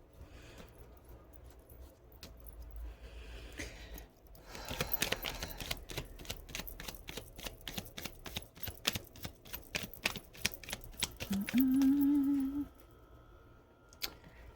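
Tarot cards being shuffled: a quick run of crisp clicks and flicks lasting several seconds. Near the end, a short low hum of about a second is the loudest sound.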